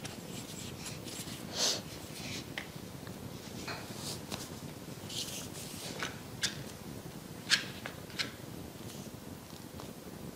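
Soft rustles and small clicks of crocheting yarn with a hook and handling the work, scattered irregularly, with a sharper click past the middle, over a steady low hum of room tone.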